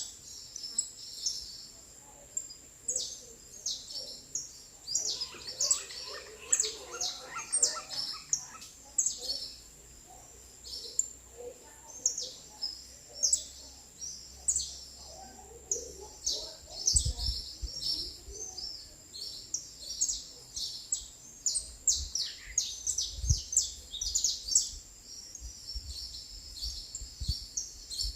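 Small songbirds chirping: a dense run of quick, high, overlapping chirps and tweets, with a thin steady high tone behind them. A few low thumps come in the second half.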